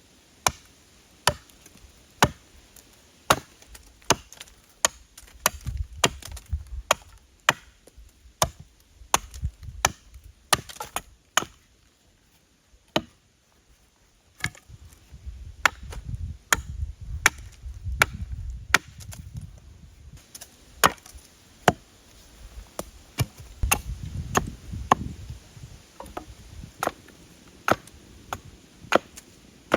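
Wood being chopped with a blade: a long run of sharp strikes on wood, roughly one a second and sometimes two in quick succession, with a short lull about midway.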